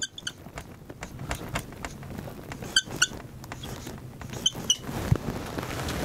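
Dry-erase marker writing on a whiteboard: a run of short scratchy strokes, with two pairs of brief high squeaks, the first about three seconds in and the second about four and a half seconds in.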